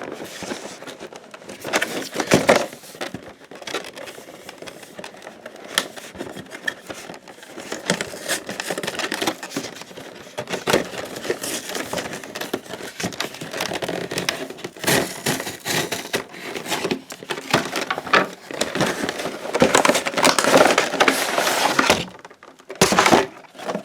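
A cardboard collector's box and its packaging being opened by hand: irregular rustling, crinkling and tearing with many small clicks and knocks, busiest for a couple of seconds near the end.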